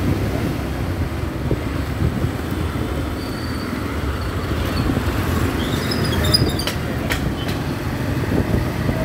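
Riding along on a motorcycle: a steady low rumble of the engine mixed with wind on the microphone. A few brief high chirps and light clicks come through near the middle.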